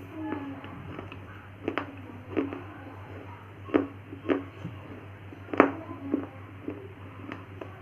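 Crisp crunching bites into hard baked clay snacks, eaten close to the microphone: about seven separate cracks at irregular intervals, roughly one a second, over a steady low hum.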